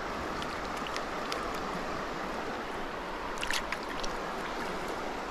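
Stream water rushing steadily around the wader, with a few small splashes about three and a half seconds in.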